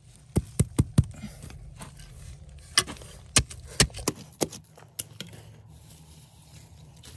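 Hand hoe chopping into pebbly soil: four quick sharp strikes about a second in, then about eight more, more spread out, before the strikes stop about five seconds in.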